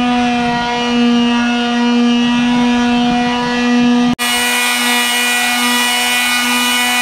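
Electric quarter-sheet palm sander running steadily against stained wooden boards, a loud even buzzing hum. It cuts out for an instant about four seconds in and resumes at a slightly different pitch.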